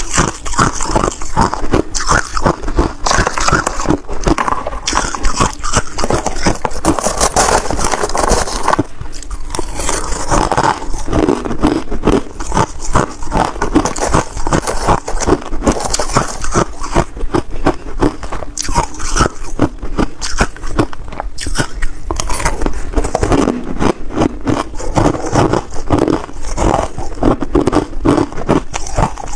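Ice being bitten and chewed close to the microphone: dense, continuous crunching and cracking, with a short lull about nine seconds in.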